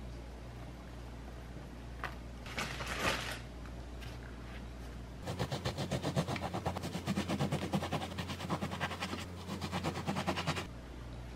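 A knife sawing back and forth through a stack of white bread slices to cut off the crusts: a quick run of rasping strokes lasting about five seconds, starting about five seconds in. A brief scrape comes about three seconds in.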